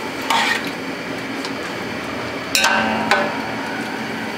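Steel ladle stirring chicken in a large aluminium cooking pot, clanking against the pot three times, with metallic ringing after the knocks, over a steady hiss.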